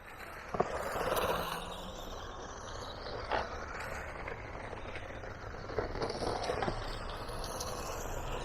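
Battery-powered Haiboxing Protector RC car driving over rough ground, its tyres and chassis rustling and scraping through leaves and twigs, with a few sharp knocks as it bounces.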